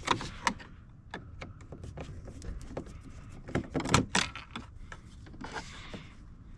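Scattered small clicks and knocks of a screwdriver working on a car door's plastic trim panel, with a louder cluster of knocks about four seconds in and a brief rustle near the end.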